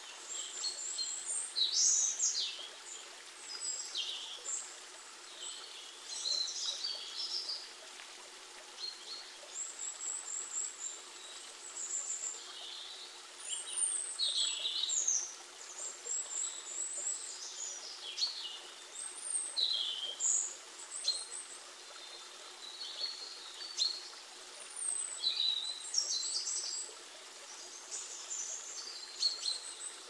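Small birds singing and calling again and again, with short high chirps and trills, over the steady faint hiss of a river flowing.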